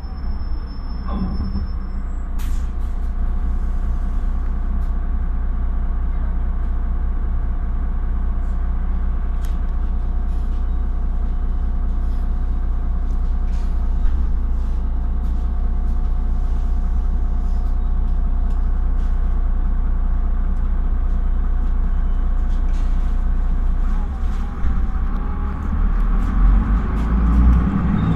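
Steady running of a Solaris Urbino 15 III city bus's DAF PR228U1 9.2-litre diesel engine, heard from inside the passenger cabin as a low hum with steady tones above it and a few short clicks and knocks. The engine grows louder near the end.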